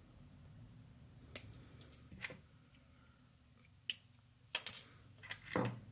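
A few small, sharp clicks: flush cutters snipping an electrolytic capacitor's wire lead, with lighter clicks as the part and board are handled.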